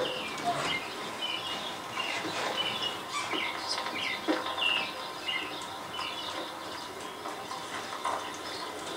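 Birds chirping outdoors, short scattered high chirps over a steady background hiss.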